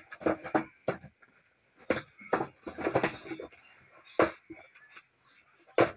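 Cardboard action-figure box being handled and pried open by hand: a string of short, irregular scrapes, taps and rustles from the packaging flap as it resists opening.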